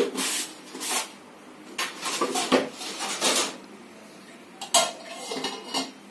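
Steel kitchenware and a pot lid clattering and clinking in a run of short knocks, loudest right at the start, as a steel lid is handled and set on an aluminium cooking pot.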